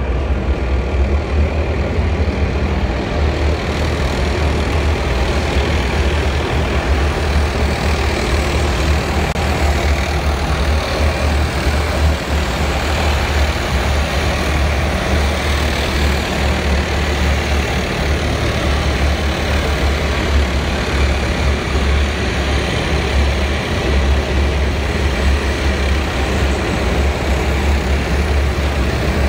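Column of Type 10 main battle tanks driving past at parade speed, with a steady, deep engine rumble and the noise of their running gear.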